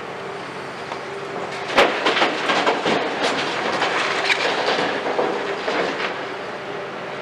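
Hitachi 210 excavator running while its bucket dumps demolition rubble into a steel tipper truck body: a sharp bang a little under two seconds in, then a few seconds of clattering and rattling as the broken concrete pours into the bed, thinning out near the end.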